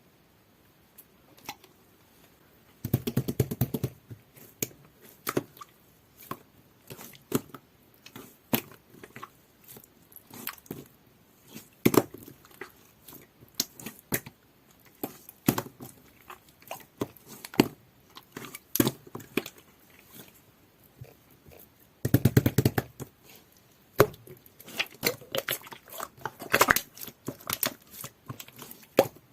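Clear, jelly-like slime being squeezed and poked by hand: scattered sharp clicks and pops, with two bursts of rapid crackling squishes, about three seconds in and again about twenty-two seconds in.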